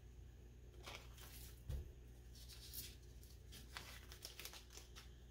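Faint crinkling of a plastic vacuum seal bag as a flat battery cell is slid into it, a few soft crackles with a small knock about two seconds in.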